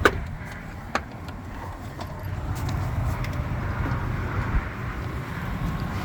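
Ford 5.4-litre V8 idling steadily with a smooth, even rumble, running at normal temperature on a freshly replaced water pump. Two sharp clicks, one at the start and one about a second in, and another at the end.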